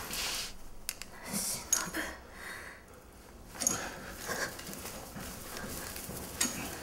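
Hard, uneven breathing in short hissing breaths, mixed with rustling and a few small sharp clicks.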